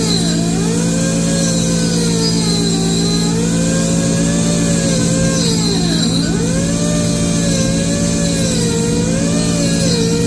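Homemade lathe built from a drill press running: a steady motor hum with a whine over it that rises and falls in pitch.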